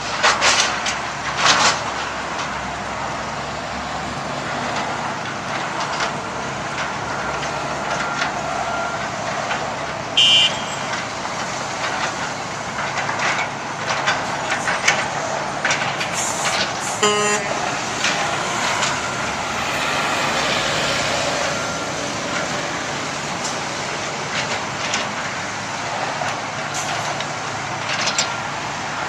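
Diesel engines of heavy earthmoving machinery running steadily, with sharp knocks and clatter from concrete chunks being loaded into a roll-off container: a few near the start, one around ten seconds in and a cluster around the middle.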